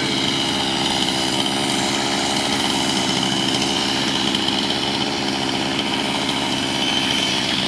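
Chainsaw engine running at a steady speed, with no change in pitch or level.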